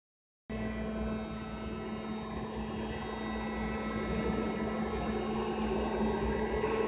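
Interior of a BART C1 (Alstom) car in motion: the Westinghouse 1463 traction motors and propulsion gear give a steady hum with several high whining tones over a low rumble of the running gear. It starts about half a second in.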